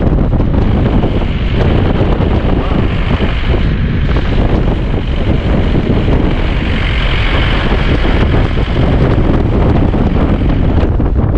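Loud, steady wind rumbling and buffeting on the microphone.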